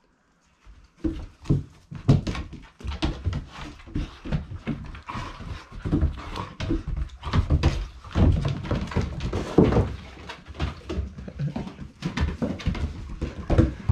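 Dogs playing rough together at close range: scuffling with many irregular thumps and knocks, and short low canine vocal sounds. It starts after about a second of quiet.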